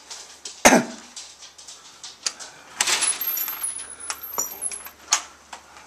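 Glass door being unlatched and opened: a sharp click about half a second in, a rattling rush around three seconds in, and a few lighter clicks after.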